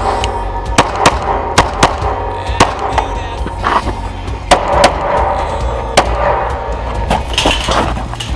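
Background music with a steady bass line, overlaid by irregular sharp clicks and knocks.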